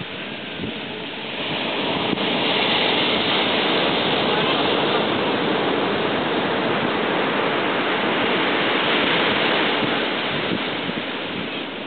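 Ocean surf breaking and washing up the sand: a steady rush that swells about two seconds in and eases off near the end.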